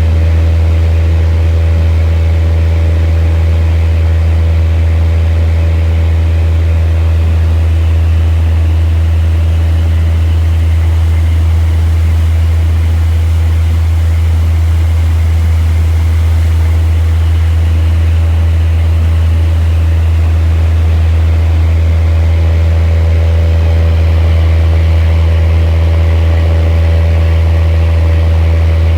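A fishing boat's diesel engine running steadily while under way, a constant loud low drone with steady higher tones above it and no change in pace.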